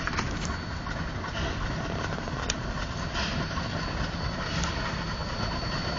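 Narrow-gauge steam locomotive rumbling steadily as it approaches slowly, with a sharp click about two and a half seconds in.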